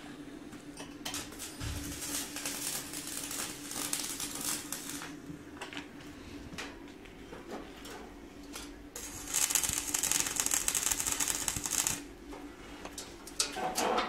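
Metal clicks and rattles as wire mesh and copper tubing are handled on a steel stove body, over a faint steady hum. About nine seconds in, an electric welding arc crackles and hisses for some three seconds.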